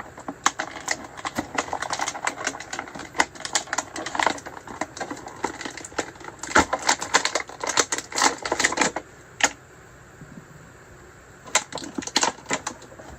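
Action figure being worked out of its packaging by hand: a dense run of sharp clicks and crackles for about nine seconds, a short lull, then more clicks near the end.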